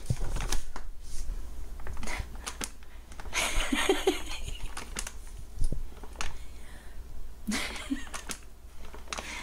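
A paper popcorn bag stuck over a dog's head rustling and crinkling irregularly as the dog moves its head, with scattered clicks of its claws on the vinyl floor.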